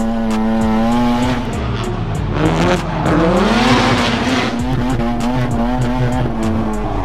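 Mazda RX-7 FC's turbocharged 13B rotary engine held at high revs through a drift. The revs dip and climb again about two and a half seconds in, with tyre squeal loudest in the middle.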